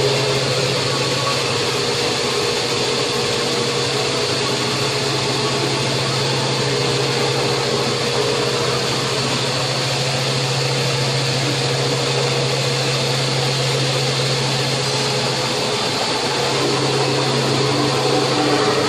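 Metal lathe running steadily with a constant machine hum, as the worn bearing bore of an electric motor end bell is bored out.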